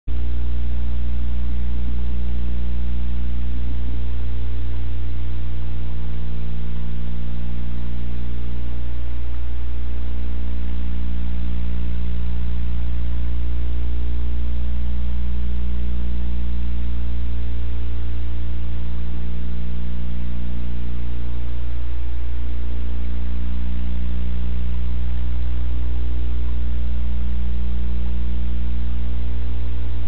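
Steady electrical mains hum, a deep buzz made of several even tones, with hiss above it; one of its tones dips and returns every four seconds or so.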